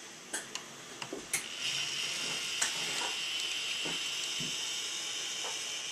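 An N scale model switcher locomotive running along the track: a few light clicks, then a steady high whine from its small electric motor and drive.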